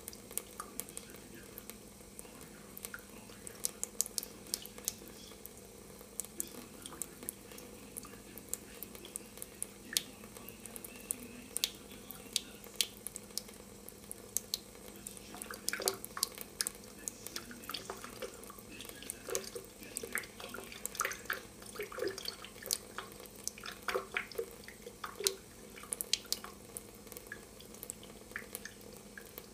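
Thin stream of water from a kitchen faucet trickling into a stainless steel sink, with irregular dripping and splashing ticks that grow busier about halfway through, over a steady low hum.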